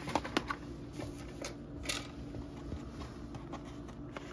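A food package being handled and opened by hand: scattered clicks and crinkling, with a brief louder rustle about two seconds in.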